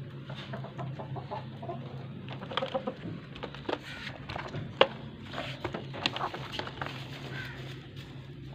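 Hens clucking in short, scattered calls inside a wooden wire-mesh coop, with a single sharp knock a little past the middle and a steady low hum underneath.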